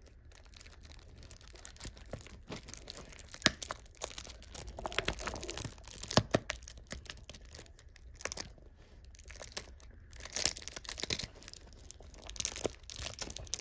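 Clear polypropylene wrapping film being picked at and peeled off a small cardboard toy box, crinkling and crackling irregularly, with a couple of sharper snaps.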